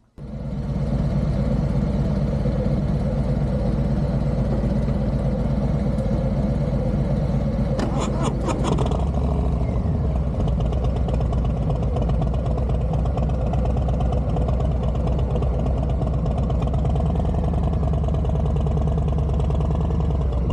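Motorcycle engine running steadily under way. A brief sharper noise cuts in about eight seconds in.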